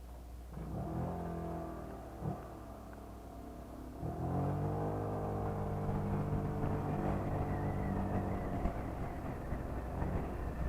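Honda PCX scooter engine: a short rev that falls away, then it pulls away about four seconds in and runs steadily, with a thin high whine over it in the second half.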